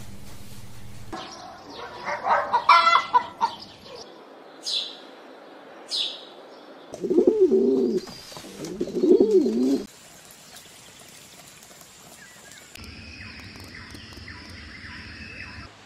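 Rock pigeon cooing twice, two wavering drawn-out coos about seven and nine seconds in. Before them comes a burst of loud choppy calls and two short high chirps, and after them quieter faint tones.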